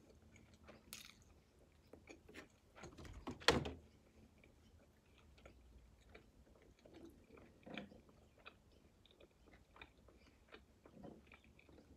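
A person chewing a barbecue-sauced chicken wing: quiet, scattered wet mouth clicks, with one louder click about three and a half seconds in.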